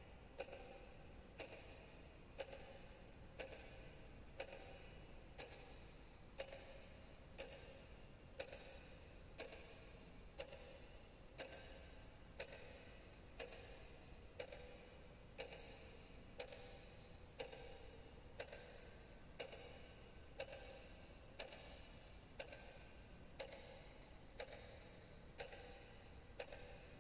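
A clock ticking steadily, about two ticks a second, every other tick louder in a tick-tock pattern.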